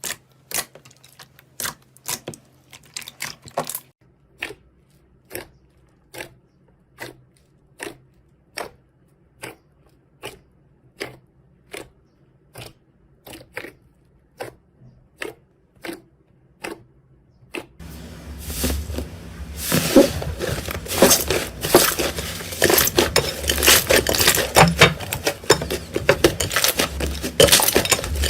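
Slime being pressed and squeezed by hand: single sharp clicks at about one to two a second, then from about two-thirds of the way through a dense run of crackling.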